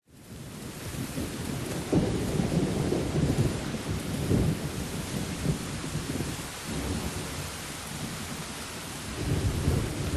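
Steady rain with low rolls of thunder, starting abruptly, with the rumbles swelling about two seconds in, again around four seconds, and near the end.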